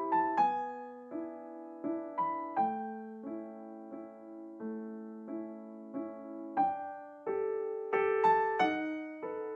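Background piano music: single notes struck about every half second to a second, each ringing out and fading over held lower notes.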